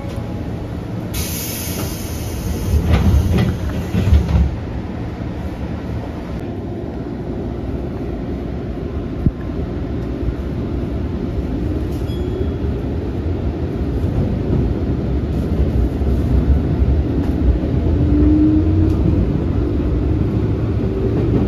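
JR 205 series commuter train departing: a hiss of air with a couple of thuds as the doors close about a second in, then the train pulls away with a low rumble of wheels and motors that builds as it speeds up, and a rising motor whine near the end.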